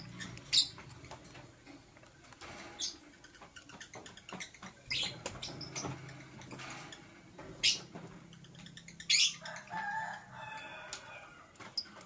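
Masked lovebird giving short, sharp, high-pitched chirps, about five of them a couple of seconds apart.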